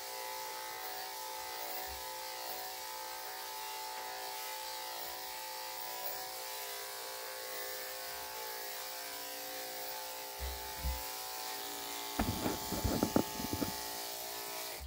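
Electric dog grooming clippers with a 3/4-inch blade running steadily with an even buzzing hum as they clip a puppy's coat, cutting off suddenly at the very end. About twelve seconds in, a short cluster of sharp knocks is louder than the hum.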